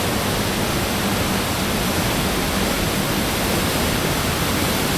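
Waterfall cascading close by: a steady, loud rush of falling water.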